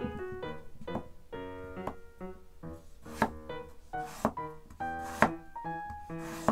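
Chef's knife slicing through a raw peeled potato and knocking on a wooden cutting board, a sharp chop roughly once a second, over background piano music.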